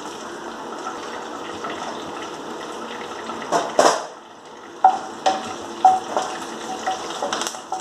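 Curry leaves sizzling steadily in hot oil in a nonstick kadai, with a couple of knocks on the pan around the middle. In the second half a spatula stirs them, making short scraping squeaks against the pan.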